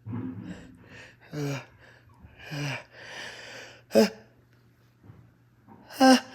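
A congested man gasping in short, halting, partly voiced breaths as a sneeze builds up, with a sharp loud intake about four seconds in and another near the end.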